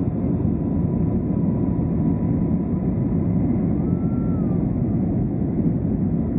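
Steady cabin noise of an airliner climbing after takeoff: engine and rushing air, heaviest in the low end. A faint thin tone sits above it for the first few seconds, and a brief faint whistle rises and falls about four seconds in.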